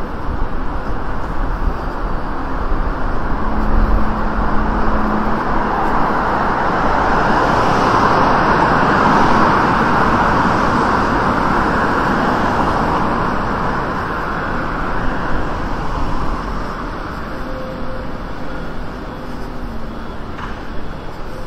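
Road traffic: a car passes close by, its noise swelling to a peak about halfway through and then fading, over a steady background hum of city traffic.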